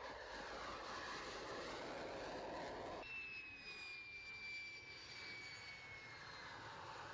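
F-16 fighter jet engine: first a steady rushing roar as the jet flies low over the runway and climbs away, then, after an abrupt change about three seconds in, a high jet whine that slowly falls in pitch as an F-16 lands and rolls out.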